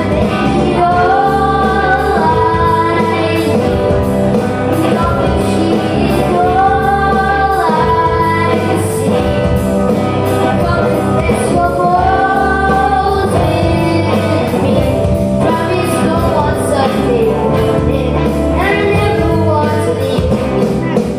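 A live rock-pop band with drums, bass guitar and electric guitar playing a song while a lead vocalist sings the melody, holding and bending long notes.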